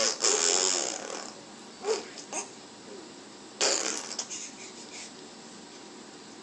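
Five-month-old baby making breathy vocal sounds: a long breathy one at the start, two short coos around two seconds in, and another breathy sound a little past three and a half seconds that tails off.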